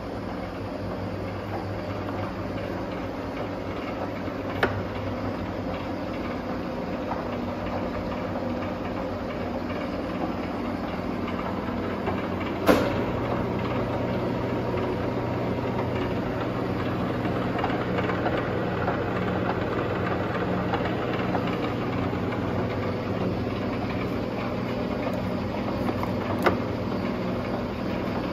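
Wasino engine lathe running with its spindle and chuck turning, a steady mechanical hum with several steady tones. A sharp clunk about halfway through, after which the hum settles slightly higher in pitch.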